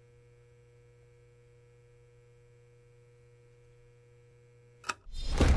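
Sound design for an animated logo intro: a faint steady hum of several thin tones, then a short click and a loud whoosh that swells up near the end.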